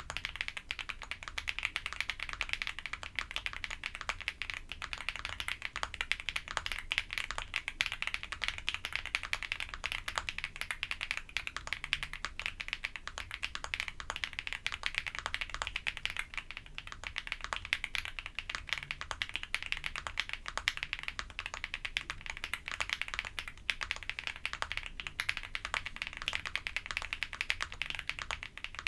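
Continuous fast typing on a WOB Crush80 custom mechanical keyboard with Kailh Snow Cocoa switches and doubleshot ABS Cherry-profile keycaps, dense key clacks with a brief lull about two thirds of the way through. The case is damped with Poron foam, IXPE and PET sheets, and the spacebar is modded with lubed stabilizers.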